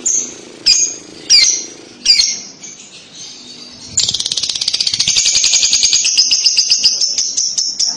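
Young female Fischer's lovebird calling: four sharp high chirps, then from about four seconds in a long, rapid chattering trill, the lovebird's 'ngekek' song.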